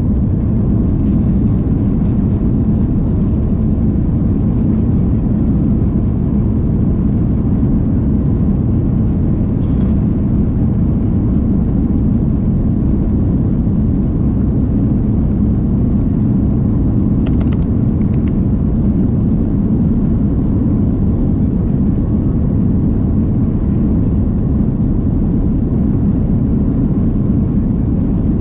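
Steady low rumble inside the cabin of an Airbus A330-200 rolling on the ground toward takeoff: engine and wheel noise at an even level, without the rising roar of the takeoff run. A few faint brief clicks come about two-thirds of the way through.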